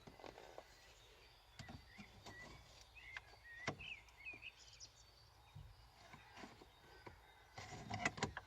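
Faint scattered clicks and knocks of the old ignition switch being pushed and worked out of a Ford Transit's steering-column housing, with a denser rattle of clicks near the end.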